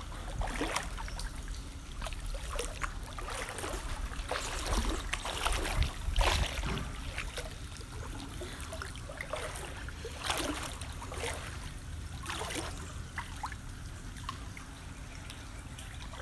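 Floodwater sloshing and splashing in irregular swishes, about one a second, as someone wades through it; the loudest splashes come about five to six seconds in.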